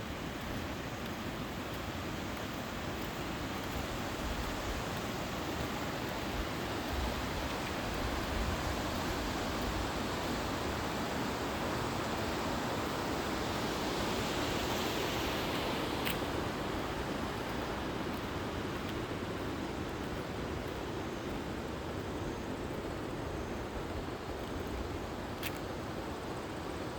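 Mountain valley stream rushing, a steady, quite loud water noise, swelling a little in the middle, with two brief clicks, one about halfway and one near the end.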